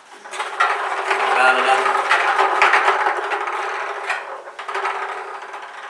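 Draw drum being turned, the small numbered plastic balls clattering around inside it for about five seconds.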